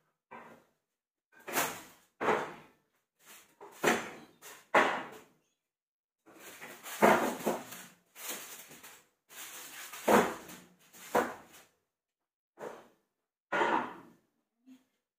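Kitchen clatter of pots and pans being handled and set down on a gas range's grates: about a dozen separate knocks and scrapes with short gaps between, the longest stretch of scraping a little past the middle.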